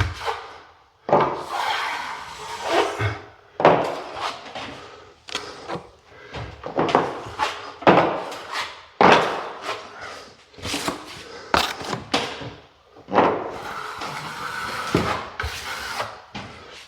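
Plastering trowel or taping knife scraping quick-set filler across plasterboard, in repeated strokes about once a second, each stroke starting sharply and trailing off.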